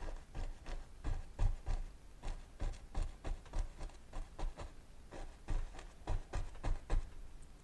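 Paintbrush tapping and dabbing oil paint onto a stretched canvas: a quick, irregular run of soft taps, about three a second.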